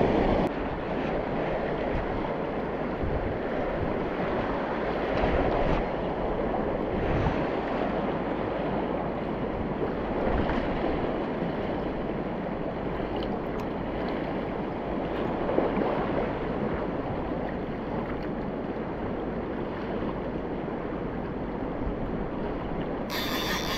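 River current running over a stony bank, a steady wash of moving water.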